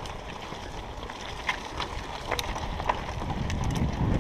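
Mountain bike rolling over a dirt trail: a steady low tyre rumble with scattered sharp clicks and rattles from the bike.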